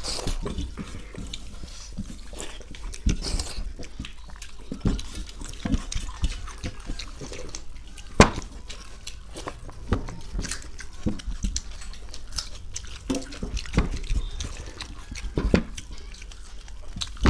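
Fingers mixing and scooping watery panta bhat (rice soaked in water) on steel plates, with wet squelching, drips and mouth eating sounds. Irregular sharp clicks of fingers on the steel run throughout; the loudest is a single sharp click about eight seconds in.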